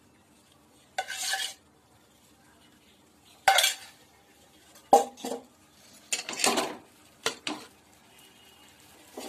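Perforated steel spoon scraping and clinking against a stainless steel kadai in a handful of short strokes, pushing a lump of ghee around the pan as it melts.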